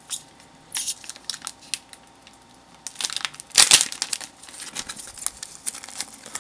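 Foil booster-pack wrapper crinkling as it is torn open by hand: scattered sharp crinkles, with the loudest burst about three and a half seconds in.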